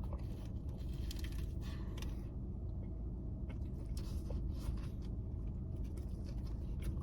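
Mouth sounds of someone chewing a crispy fried chicken sandwich, with scattered soft crunches and clicks over a steady low hum.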